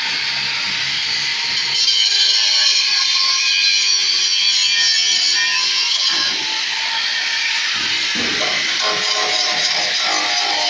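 Electric angle grinder with its abrasive disc grinding into the steel of a vehicle's welded door pillar, throwing sparks: a steady, loud, high hiss and whine of disc on metal that grows louder about two seconds in.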